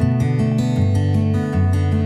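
Background music: an acoustic guitar tune, strummed in a steady rhythm.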